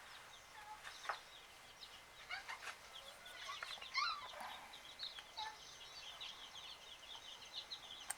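Faint birds chirping and calling in the background, with many short, quick calls and a louder cluster about halfway through.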